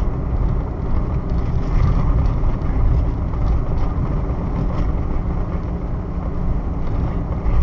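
Car driving along a road, with steady engine and tyre rumble heard from inside the cabin.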